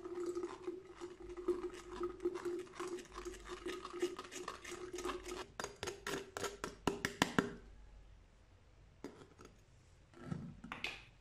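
Metal spoon scraping and tapping inside a steel mesh strainer in quick strokes, pressing tamarind and plum pulp through to strain the sharbat. The strokes stop after about seven seconds, with a few lighter scrapes near the end.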